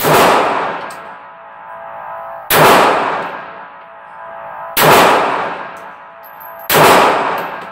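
Taurus TCP .380 pocket pistol fired four times, about two seconds apart. Each shot is followed by a long echo and ringing off the concrete walls of an indoor range.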